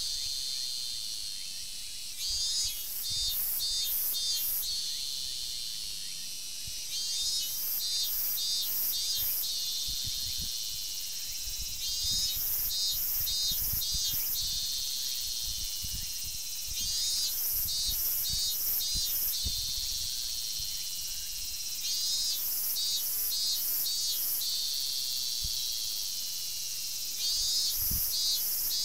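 Robust cicada (minmin-zemi) singing loudly in repeated phrases about every five seconds, six in all: each begins with a rising buzz and then breaks into four or five pulsing notes, over a steady high buzz.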